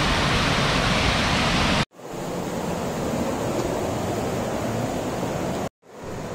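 Waterfall rushing: a steady roar of falling water that cuts out abruptly about two seconds in and comes back quieter and duller, then drops out again briefly near the end.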